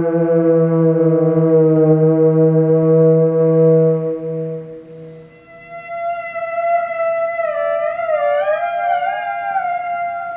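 A low held note with many overtones fades out about four to five seconds in. A high theremin tone then enters, held steady at first, then wavering and sliding up and down in pitch, with a second pitch weaving around it before it settles again.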